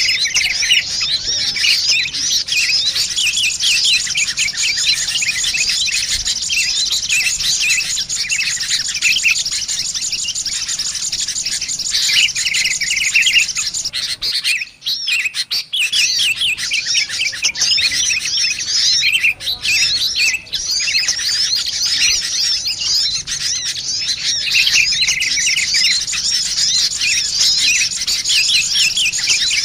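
Bird-lure recording of sunbirds chattering mixed with sooty-headed bulbuls calling: a dense, continuous run of rapid high chirps and trills. It drops out briefly about halfway through.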